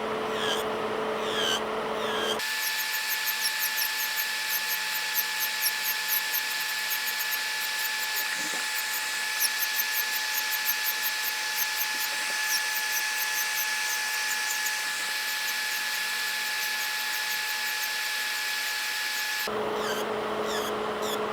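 Electric nail drill running with a steady whine that jumps suddenly to a higher pitch about two seconds in and drops back near the end, with quick high chirps above it.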